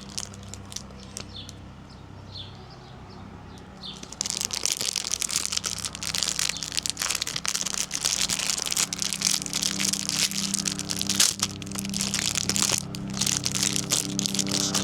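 Crinkling and crackling of plastic packaging as a squishy toy is unwrapped. It starts with a few scattered clicks, then turns to dense, continuous crinkling about four seconds in, over steady background music.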